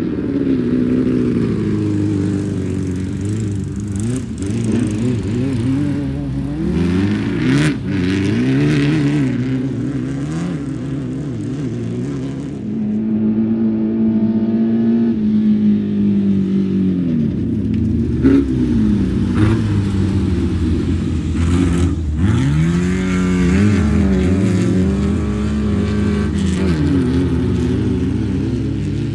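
Class 11 VW Beetle desert race car's air-cooled flat-four engine running hard off-road, its pitch rising and falling repeatedly as it revs and eases off.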